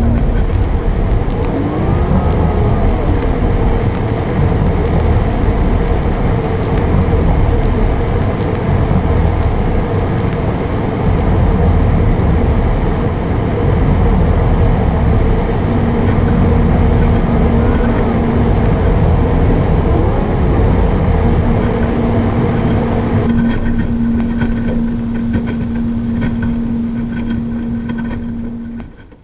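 Loud, dense rumbling noise with two steady droning tones held over it, fading out in the last second.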